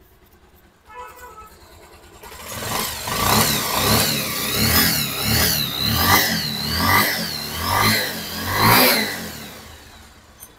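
Bajaj Pulsar 150's single-cylinder engine, freshly rebuilt with a new block kit and running through its silencer, starting about two seconds in and then revved in a string of quick throttle blips, about eight rising and falling swells, before dying away near the end.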